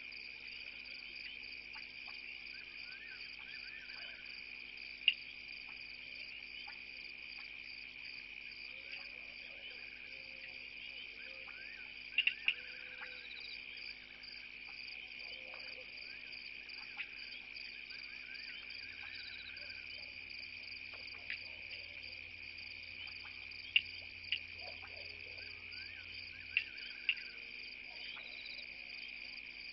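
Night insect chorus: crickets trilling steadily, with a handful of sharp clicks scattered through and a few faint short calls underneath.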